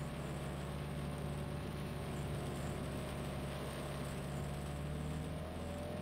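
A vehicle engine running steadily at idle, with a low even hum; its lowest tone drops out about five and a half seconds in.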